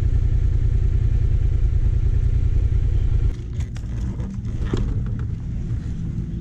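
Motorcycle engine idling, heard close from the rider's seat. About three seconds in the sound drops sharply, and a few short clicks and knocks follow over a lower rumble.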